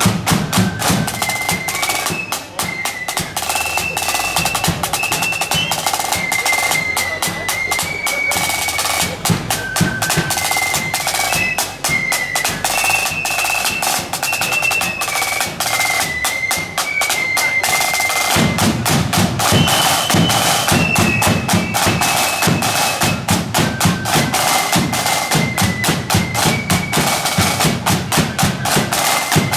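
Marching band playing a high, stepping melody over rapid snare drum rolls and bass drum beats; the bass drum comes in heavier about two-thirds of the way through.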